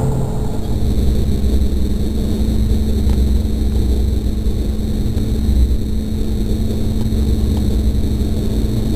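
Fendt combine harvester running steadily while cutting, heard from inside the cab: a constant low drone with a steady hum and a faint high whine.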